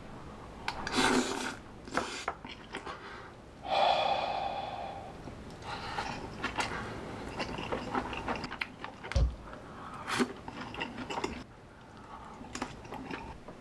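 A person huffing out breaths around a mouthful of hot food, with a longer breathy voiced exhale about four seconds in. Chewing and a few light clicks run through it, and a dull thump comes about nine seconds in.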